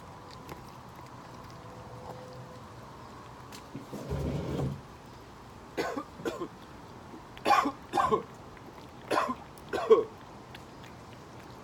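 Three pairs of short, sharp coughing sounds, the loudest near the end, after a brief dull rumble a little after four seconds in.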